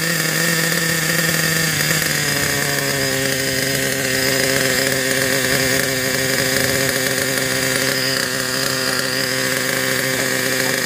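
Glow (nitro) engine of an off-road RC buggy idling steadily just after a cold start with a starter box; its pitch drops slightly about two seconds in and then holds.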